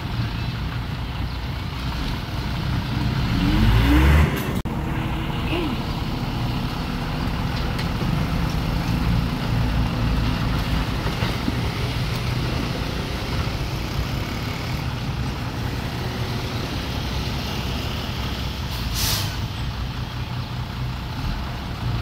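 Heavy diesel earthmoving machinery running steadily. About four seconds in, an engine revs up to its loudest and cuts off abruptly, and near the end there is a short hiss.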